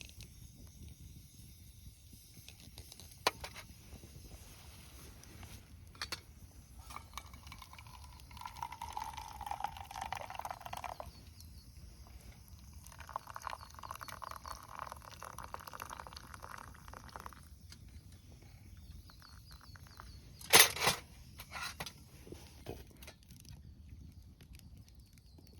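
Freshly boiled water being poured into a container in two pours, each lasting a few seconds. There are a few light clicks, and a loud clack about twenty seconds in.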